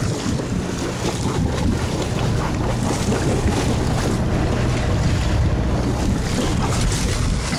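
Fishing boat's engine running steadily under the wash of the sea, with wind buffeting the microphone.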